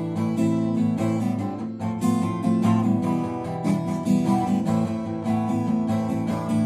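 Acoustic guitar strummed in a steady rhythm, playing the chords of a song's introduction.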